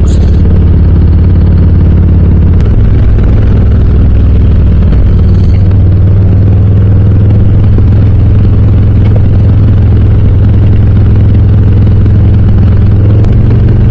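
Harley-Davidson Low Rider S V-twin with Cobra RPT slip-on exhausts running steadily at cruising speed: a loud, even low drone. The pitch steps up slightly about two and a half seconds in.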